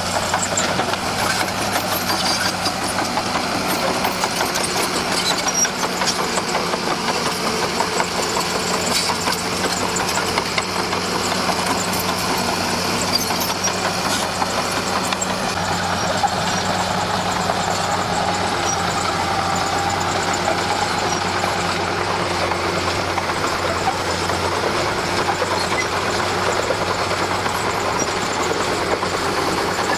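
Diesel engine of a D41P crawler bulldozer running steadily at working speed, a constant engine drone with no breaks.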